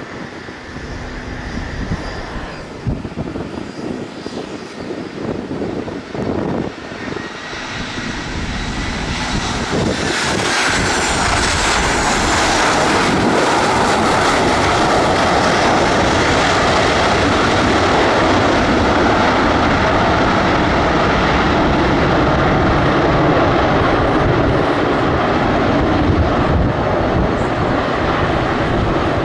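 Aircraft engines at high power, growing steadily louder over the first ten seconds, with a falling high whine as the plane passes, then holding a loud, steady noise.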